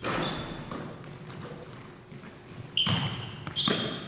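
Basketball bouncing on a hardwood gym floor, about four thuds, with short high sneaker squeaks on the floor, echoing around the gym.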